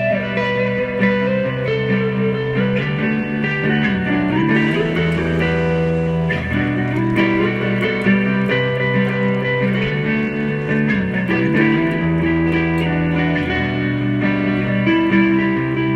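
Instrumental background music led by guitar over a bass line, with some notes bent in pitch.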